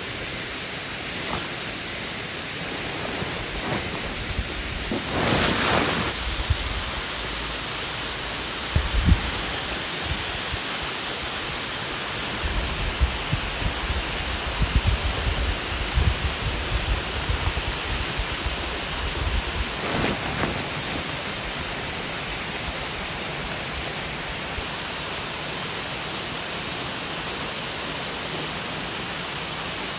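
Steady rushing noise of running water throughout. Over it, a brief swish of fabric about five seconds in, then scattered low thumps and knocks through the middle as a pop-up hub screen tent is unfolded and pulled open.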